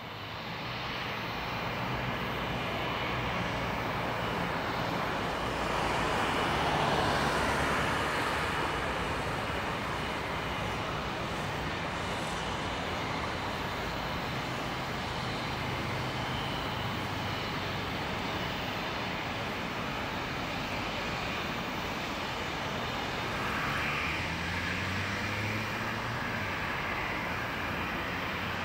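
Jet engines of taxiing twin-jet airliners, among them a Boeing 737-700 BBJ, running at low taxi power. A steady jet hum and whine swells briefly about a quarter of the way in.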